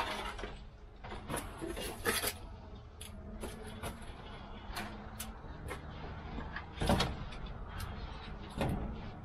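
Irregular knocks and rattles of a metal shelving unit and the pots and boxes on it being handled and shifted, with the loudest knock about seven seconds in.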